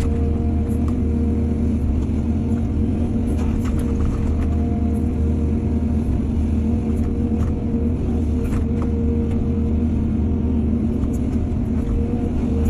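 Heavy diesel engine of earthmoving machinery running steadily at a constant pitch, with a few short clanks scattered through.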